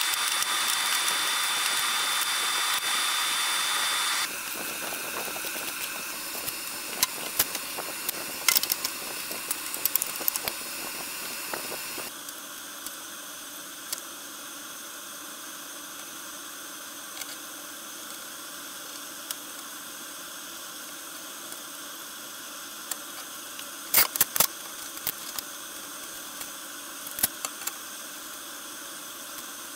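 Steady background hiss and hum whose tone shifts abruptly twice. Scattered light clicks and knocks come from walnut strips and bar clamps being handled, bunched about a third of the way in and again near the end.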